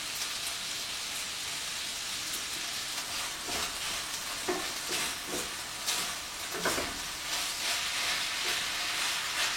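Fried rice sizzling in a frying pan, the sweet soy sauce (kecap manis) just stirred in and thickening. From about three and a half seconds in, a spatula scrapes and stirs the rice in short strokes.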